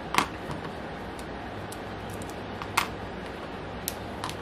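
A few short, sharp clicks and knocks from handling a small model glow engine and its parts: a loud one just after the start, another a little before three seconds, and two faint ones near the end, over a steady low hum.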